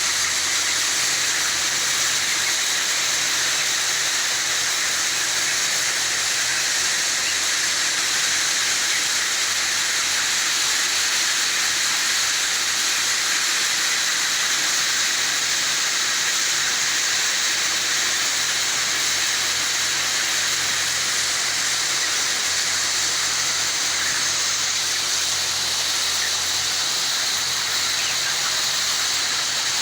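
Steady hissing din in a broiler chicken house, with a low hum underneath and no pauses.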